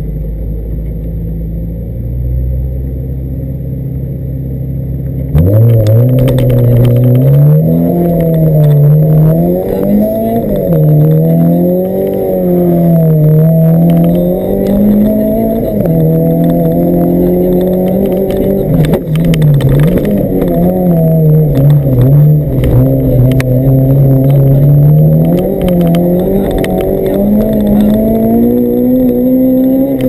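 Honda Civic rally car's B16B 1.6-litre VTEC four-cylinder engine heard from inside the cabin: held at steady revs for about five seconds, then a sudden jump in loudness as the car sets off, the revs climbing and falling back again and again as it is driven through gear changes and corners.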